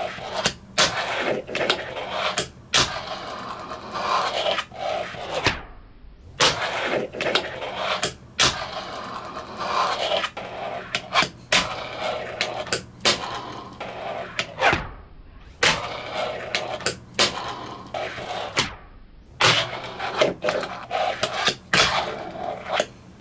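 Fingerboard wheels rolling across a desktop, with repeated sharp clicks and clacks as the tail pops and the board lands, trick after trick, in several short runs.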